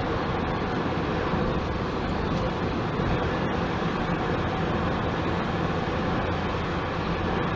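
Steady road noise inside a moving car's cabin: tyre and engine noise at highway speed.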